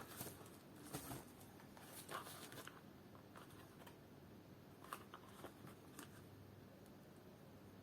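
Near silence with faint handling noises from hand work on a shoe: a few soft scrapes and clicks in the first few seconds and a couple more later, over quiet room tone.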